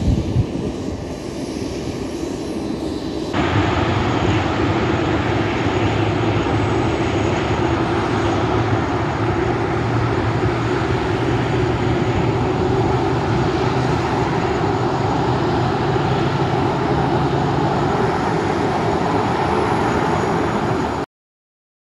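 Boeing 737-300's CFM56-3 jet engines running during pushback, a steady roar that suddenly grows louder about three seconds in. It cuts off abruptly near the end.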